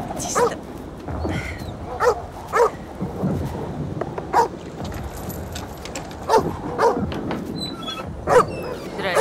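A dog barking repeatedly: about eight short barks, some in quick pairs, spaced roughly half a second to two seconds apart.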